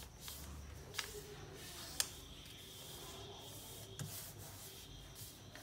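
A sheet of printer paper rubbing and rustling softly against itself and a wooden tabletop as hands smooth and line up its folds, with three short sharp paper clicks about one, two and four seconds in.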